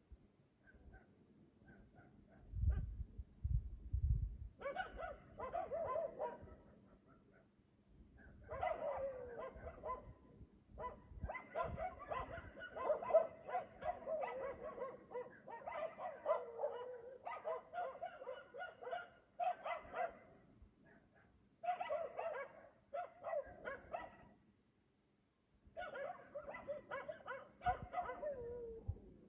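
A dog barking over and over in long bouts, with short pauses between them. A few low thumps come about three seconds in.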